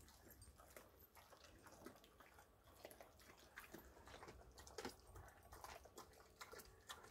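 Faint, irregular crunching and clicking of a dog chewing a turkey neck.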